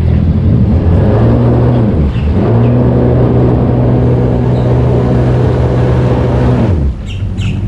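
Jet ski engine running at a steady low throttle. Its pitch dips briefly and picks back up about two seconds in, then drops back toward idle near the end.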